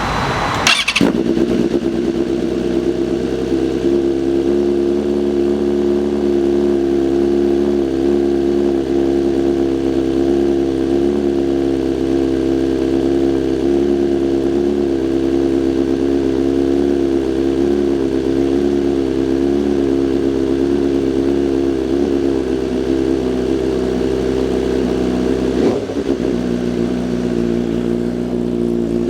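BMW M1000RR's inline-four engine idling steadily, after a short sudden burst at the very start.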